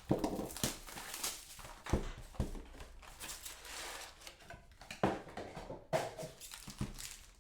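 Plastic wrapping and cardboard crinkling and rustling in short, irregular bursts with small clicks as a new box of trading card packs is opened and handled.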